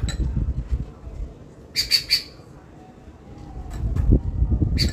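Small caged bird chirping: a quick run of three high chirps about two seconds in and another just before the end, over low rumbling noise on the microphone.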